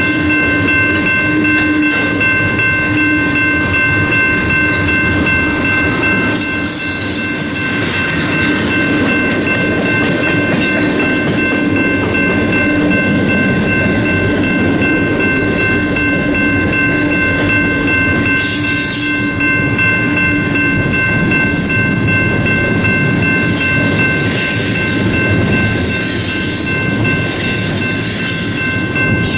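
Freight train cars, covered hoppers and a tank car, rolling past at a grade crossing: a steady, loud wheel-on-rail rumble with clickety-clack over the joints. Several steady high ringing tones run throughout, and the high hiss swells at times.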